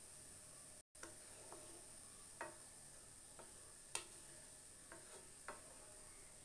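Wooden spatula stirring aval payasam (flattened rice cooking in milk) in a pan. It gives about six faint, soft taps and scrapes against the pan, and the clearest comes about four seconds in.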